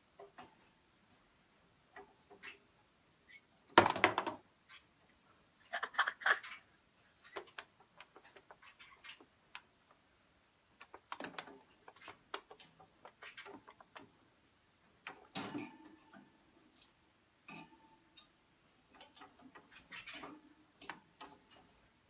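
Scattered wooden clicks and knocks as a small parrot handles a miniature wooden bird ladder against a larger wooden ladder. The loudest clatter comes about four seconds in, with another cluster of knocks around six seconds.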